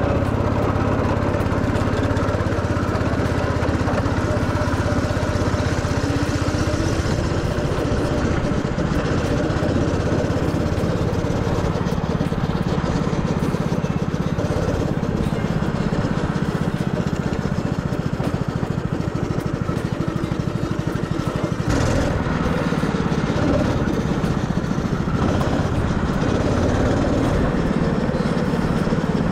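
160 cc rental go-kart engine running under throttle from the driver's seat, its pitch rising and falling as the kart speeds up and slows. A short sharp knock about three-quarters of the way through.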